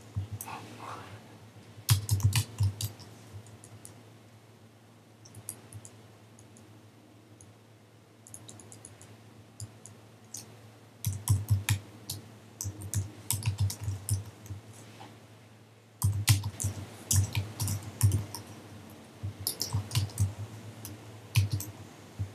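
Typing on a computer keyboard: bursts of rapid key clicks with quieter pauses between them.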